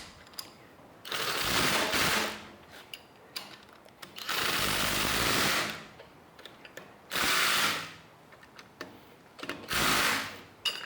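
Ratchet wrench running 3/4-inch nuts down onto the steering-arm and caliper-bracket bolts, in four short bursts of rapid clicking with pauses between.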